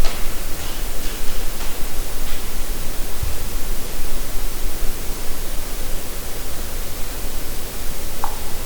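A steady, loud hiss of noise with a few faint ticks in the first couple of seconds, a brief low thump about three seconds in, and one short high chirp near the end.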